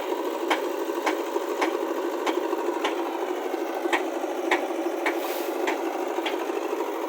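Tractor engine running steadily, with a sharp regular click about twice a second over its drone.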